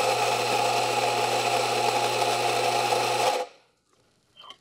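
Rancilio Rocky espresso grinder's motor and flat burrs grinding coffee beans: a steady, fairly deep-toned grinding that runs about three and a half seconds, then the motor is switched off and spins down.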